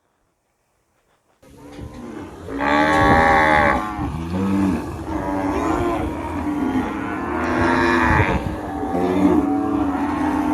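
Cows mooing: long, drawn-out moos starting about a second and a half in, with two loudest calls about three and seven and a half seconds in and lower moos between.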